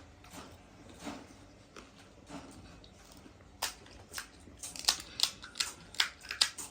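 Crisp golgappa (pani puri) shells crunching as they are bitten and chewed, a run of sharp cracks that comes quicker and louder in the second half.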